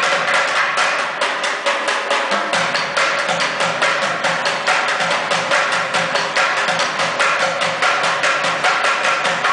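Bucket drumming: two street drummers beating upturned plastic buckets with drumsticks in a fast, continuous run of sharp strokes.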